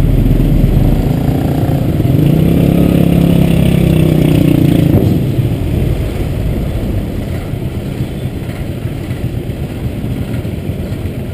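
Small motorbike engines running close by, with a loud, pitched engine note for about five seconds that then drops to a quieter, steady rumble as the bikes roll on down the ramp.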